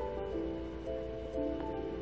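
Background music of long held, overlapping notes that change every half second or so.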